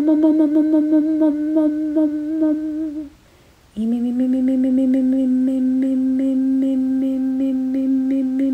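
A voice humming long held notes. The first note is held steadily for about three seconds and stops. After a short gap, a slightly lower note slides up into place and is held steady.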